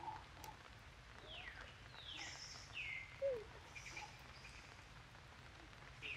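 Bird calling: three falling whistled notes about a second in, each sliding down in pitch, followed by a short lower note that is the loudest sound, over a faint steady background hiss.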